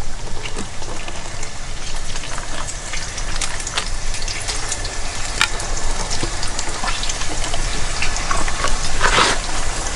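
Liquid being poured, over the steady sizzle of food frying on a camp stove, with scattered small clicks and one brief louder rush near the end.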